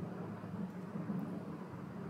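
Steady low background hum with a faint hiss: room tone picked up by the microphone.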